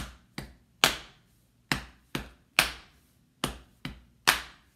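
Body-percussion rhythm: two pats on the chest followed by a louder handclap, played three times at an even tempo.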